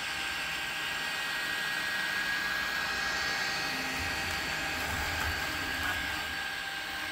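Artillery Sidewinder X4 Pro 3D printer running a print: a steady whir from its fans with a constant high whine, and the motors driving the print head and bed, with a low rumble added about four seconds in.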